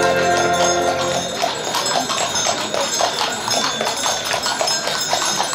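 Music with held chords ends about a second in, giving way to the steady clip-clop of horses' hooves, about four strikes a second.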